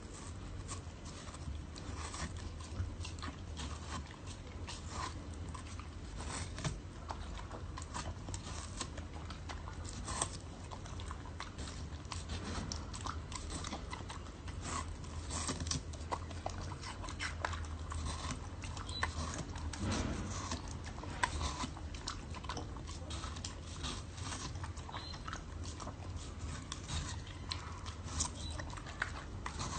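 An animal chewing food close to the microphone: a run of small, irregular crunching clicks over a steady low hum.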